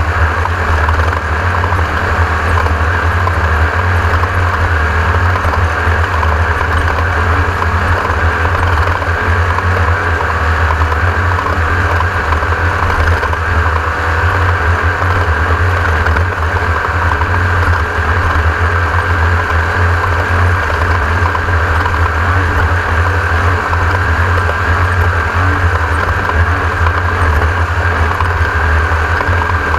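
Class 1600 off-road race buggy running at speed: a steady, loud engine drone with a heavy low rumble, holding even throughout.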